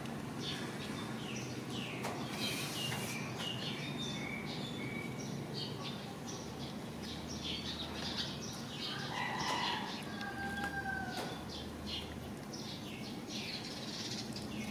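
Small birds chirping over and over in short, quick notes, with one longer call about nine seconds in.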